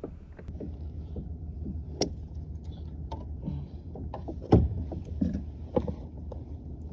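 Knocks and clatter of gear being handled on a kayak, with scattered short knocks over a low steady rumble; the loudest knock comes about four and a half seconds in.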